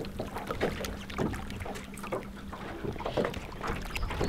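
Small waves lapping and slapping against the hull of an aluminium boat in irregular knocks, with a faint steady hum that stops about three seconds in.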